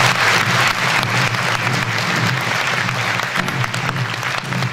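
Audience applauding, loudest at first and slowly dying away.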